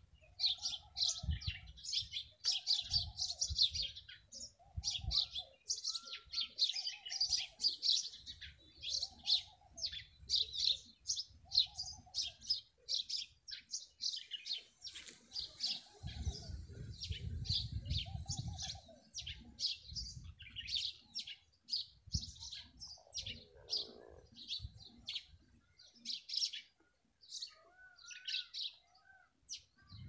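A chorus of small birds chirping rapidly and continuously. Under it, a lower call repeats about once every second and a half through the first half. A low rumble comes and goes, heaviest a little past the middle.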